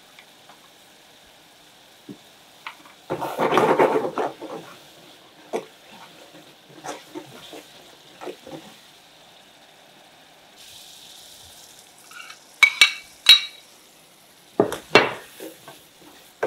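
Metal ladle stirring and scraping a spice paste frying in oil in an aluminium pot, over a faint sizzle. There is a loud stretch of stirring about three seconds in, and sharp metal clinks of the ladle against the pot near the end.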